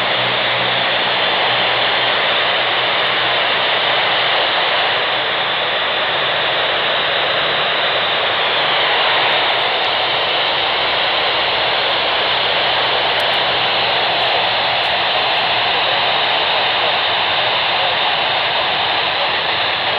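Steady hiss of open-squelch FM static from an amateur radio receiver tuned to the AO-91 satellite downlink, with no voice coming through.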